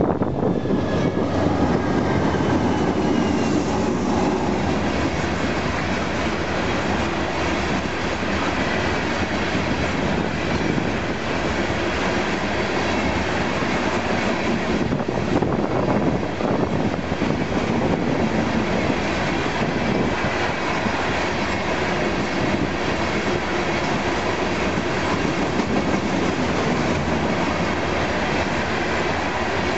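Freight train passing close: two Union Pacific diesel locomotives go by at the start, then a long string of hopper cars rolls past steadily, the wheels clicking over the rail joints.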